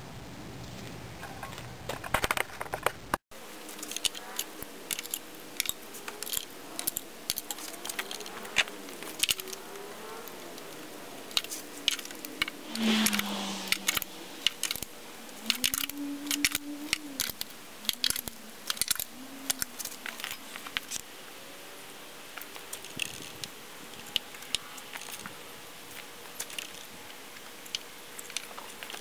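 Irregular metallic clicks and clinks of hand tools and engine parts being handled while working on top of an engine in its bay.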